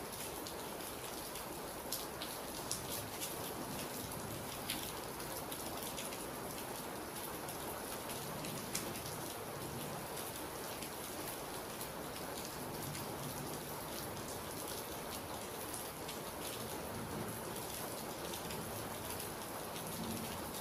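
Steady rain falling, with a few louder individual drop taps scattered through it.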